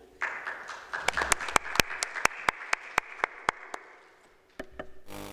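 Audience applauding, with one nearby clapper's sharp claps standing out at about four a second; the applause fades out after about four seconds. A few knocks follow near the end.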